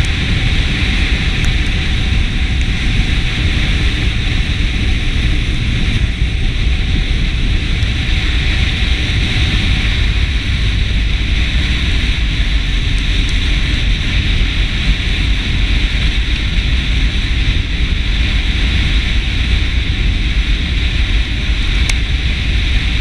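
Steady wind rush over the microphone of a camera riding on a moving motorcycle, with the motorcycle's engine and road noise underneath as a constant rumble and hiss.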